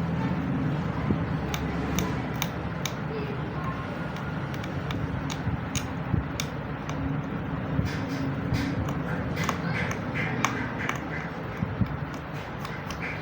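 Steady low rumble of road traffic, with scattered light clicks and taps throughout.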